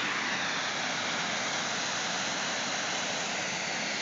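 Small waterfall spilling over a stone dam into a pool: a steady, even rush of water.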